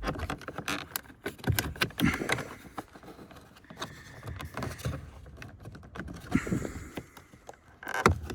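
Irregular plastic clicks and knocks from car door trim parts being handled and pressed home as they are clipped back into place.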